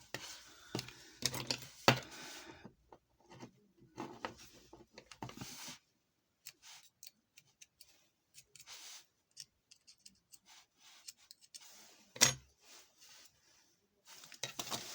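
Small metal tools clicking, tapping and scraping on a mobile phone's parts, in scattered short strokes with quiet gaps and one louder knock about twelve seconds in.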